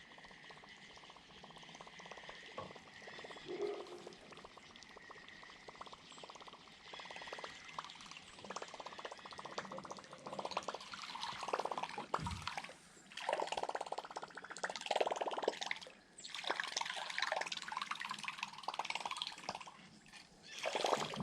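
Light water sounds, dripping and trickling, with many faint clicks.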